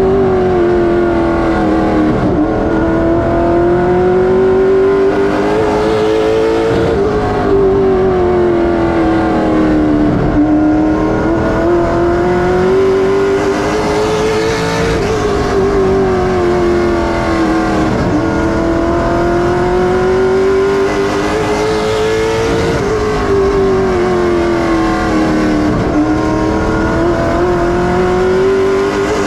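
Late model stock race car's V8 engine heard from inside the cockpit at racing speed. Its pitch rises down each straight and falls off through each turn, about every seven to eight seconds, lap after lap on a short oval.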